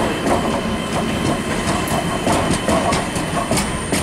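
EG2Tv Ivolga electric multiple unit rolling along the platform close by: steady running noise with the wheels clicking over rail joints. A thin high whine comes in near the end.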